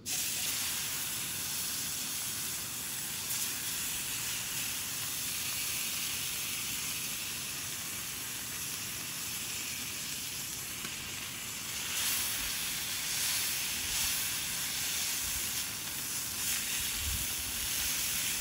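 Slices of egg-soaked French toast sizzling in a hot frying pan; the sizzle starts abruptly as the first slice is laid in and runs steadily, swelling louder a few times in the second half as the slices are moved.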